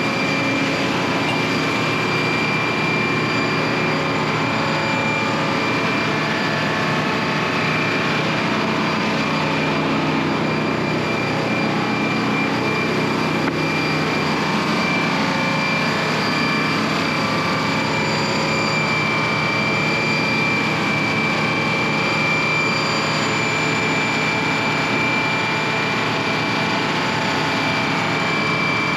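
A machine running steadily with a low hum and a steady high whine over it, unchanged throughout.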